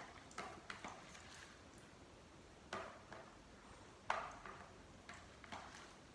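A utensil knocking and scraping against a bowl as filling is scooped out: a scattered handful of short, faint clicks and knocks, the sharpest about a third and two-thirds of the way through.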